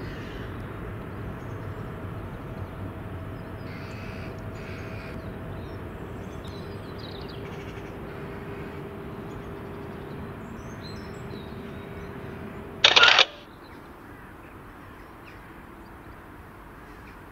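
Outdoor background: a steady low rumble with a few faint short chirps. About thirteen seconds in comes a single loud, harsh half-second sound, after which the background is quieter.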